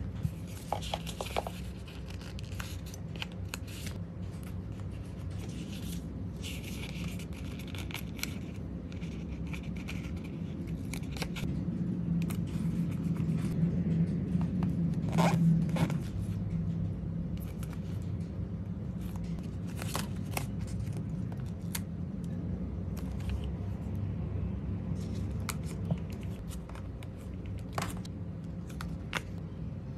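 Close-up journaling sounds: stickers peeled and pressed onto paper journal pages with tweezers, with light taps and clicks, paper rustling and rubbing, over a steady low hum.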